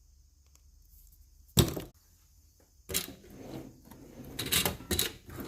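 Hard objects being handled: a single sharp knock about a second and a half in, then a quick, uneven run of clicks and rattles from about three seconds on.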